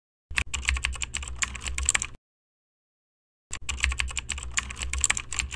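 Computer-keyboard typing sound effect: two runs of rapid key clicks, the first lasting about two seconds and the second starting about three and a half seconds in. Between them there is a gap of dead silence.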